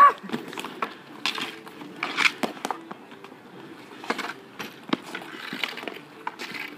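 Hockey sticks knocking a street hockey ball and the pavement, with inline skate wheels rolling on asphalt; the loudest knock, a shot, comes right at the start, followed by several lighter clacks.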